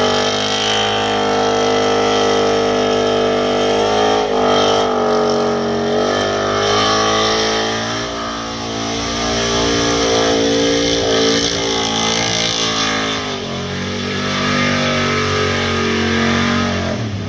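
Engine held at high revs during a burnout while the tyres spin in a cloud of smoke. The pitch is steady most of the time, with a few brief dips where the revs fall and climb back.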